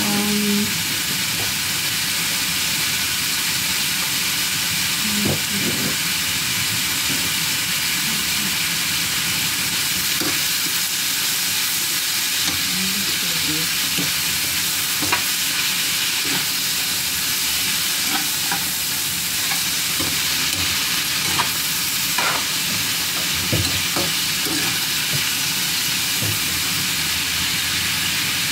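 Sliced calabacita squash with salsa and a little water frying in a skillet, a steady sizzle, with a spatula stirring and scraping the pan now and then.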